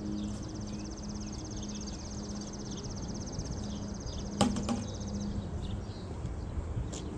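Outdoor ambience: a high, rapid, even trill that stops about five seconds in, over a low steady hum and faint chirps, with one sharp click about four and a half seconds in.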